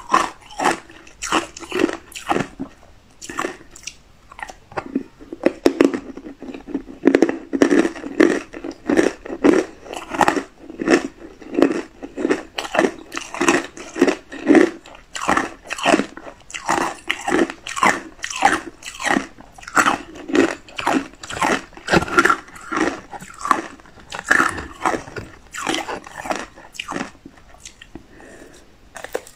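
Hard ice coated in matcha powder being bitten and chewed: a steady run of sharp, crisp crunches, two or three a second.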